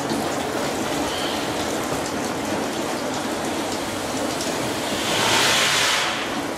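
Water splashing and pattering off the wet wooden paddles of a turning drainage scoop wheel, a steady rushing sound that swells louder about five seconds in.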